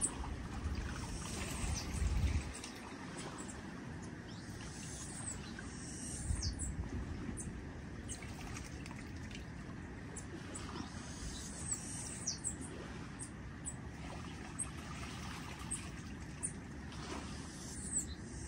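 Quiet shoreline ambience: small birds giving many short high chirps, over gently lapping water. Two brief low rumbles come about two and six seconds in.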